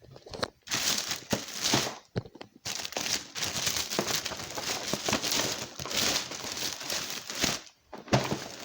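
Crinkling and rustling of packaging being handled, in two long stretches with a short break a couple of seconds in.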